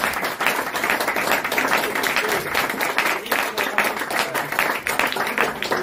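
Audience applauding: many hands clapping together in a dense, even patter.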